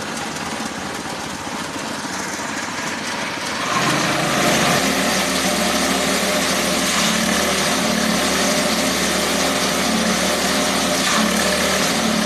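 Small engine driving a grass chopper machine, running steadily; about four seconds in it gets louder and settles into a steady, even drone.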